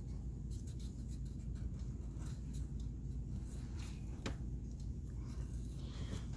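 Felt-tip markers, a black Sharpie permanent marker among them, scratching on paper in many short strokes as small circles are drawn and filled in, over a low steady hum.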